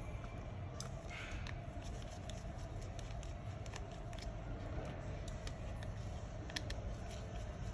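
Scattered small, sharp clicks of a precision screwdriver and tiny screws being taken out of a Samsung Galaxy Note 9's back frame, over a steady low hum.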